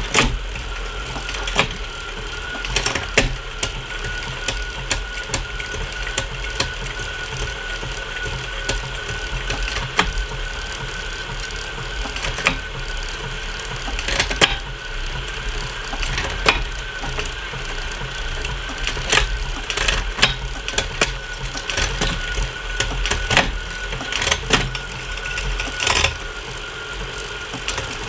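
Bicycle drivetrain spinning on an indoor trainer: a chain running over a Shimano Ultegra 12-speed cassette with a steady whine, while a SRAM AXS electronic rear derailleur shifts through the gears. Frequent irregular clicks come through the drivetrain, the sign of some cogs not lining up properly with the SRAM derailleur.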